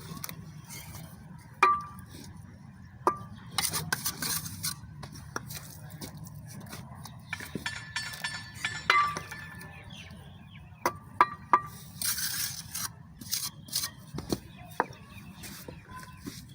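A mason's steel trowel tapping and scraping on bricks and mortar: a handful of sharp metallic clinks that ring briefly, spread out between stretches of scraping.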